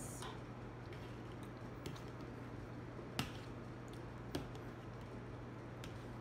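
Eating sounds: a few sharp clicks and smacks while chewing noodles and chicken, the loudest a little past three seconds in, over a steady low hum.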